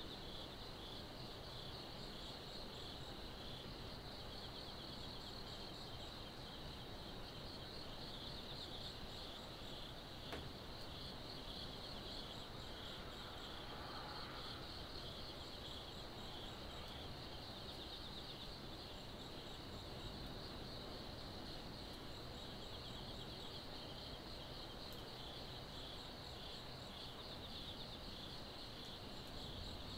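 A steady chorus of crickets chirping in a dense, pulsing trill, with fainter, higher insect chirps repeating every second or two, over a low hum of distant city noise.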